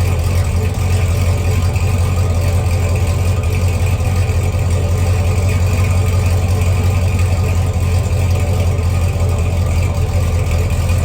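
V8 of a 2020 SS idling steadily with a deep, even exhaust note, fitted with 2-inch long-tube headers and an X-pipe ahead of the stock muffler.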